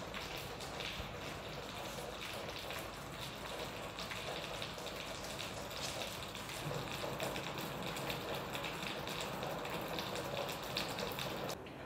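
Kitchen tap running steadily as blueberries are rinsed under it, cutting off suddenly near the end.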